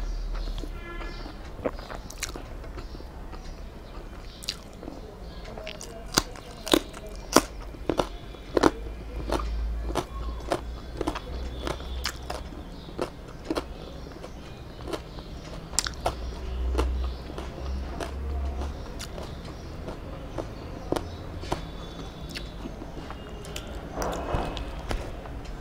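Close-up eating by hand: chewing with wet mouth clicks and smacks, and fingers working soft rice mixed with beetroot bharta, in sharp clicks at an uneven pace over a low steady hum.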